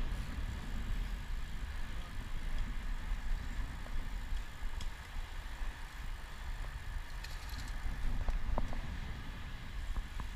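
Wind rumbling on the microphone of a camera riding along on a moving bicycle, mixed with tyre noise on the paved path. A few light clicks come about eight seconds in.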